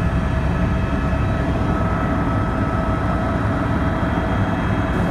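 Helicopter in flight, heard from inside the cabin: a steady, dense low rumble of engine and rotor with faint constant tones above it.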